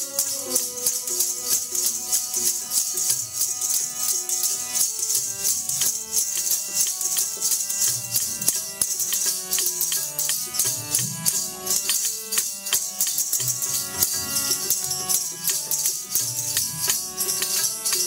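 Sikh devotional kirtan music, mostly instrumental. A jingling hand percussion keeps a steady, fast beat over held notes and drum strokes, after a sung phrase fades out just after the start.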